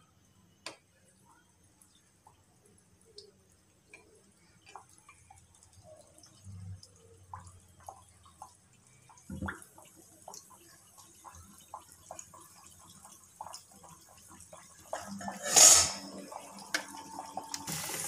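Poori deep-frying in hot oil: scattered pops and crackles that grow busier, then a sudden loud hiss about three-quarters of the way through as the poori puffs up, settling into a steady sizzle.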